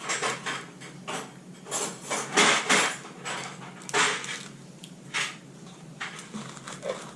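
Close-up chewing and mouth sounds of someone eating a light, fluffy caramel candy: irregular wet clicks and smacks with short pauses between them.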